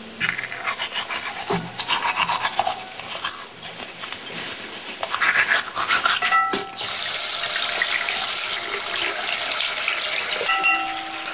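Toothbrush scrubbing in quick strokes. About halfway through, a bathroom tap is turned on and runs steadily into the sink.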